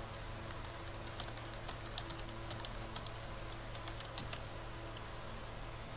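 Computer keyboard being typed on: faint, irregular key clicks over a steady low hum.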